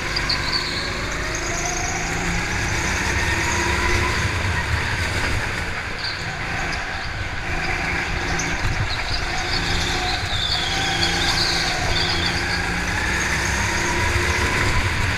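Go-kart engine running under the driver, its pitch rising and falling with the throttle through the corners, with brief high tyre squeals at times.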